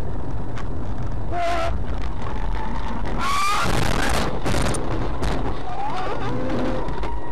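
A vehicle on the road, with a steady loud rumble of engine and road noise. A few brief pitched squeals or cries sound over it, the loudest a noisy burst about three seconds in.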